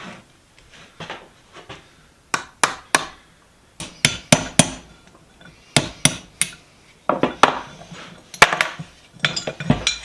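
Sharp metal knocks on the parts of a cast-iron bench vise, in small clusters of two to four strikes with short pauses between them, some with a brief ring.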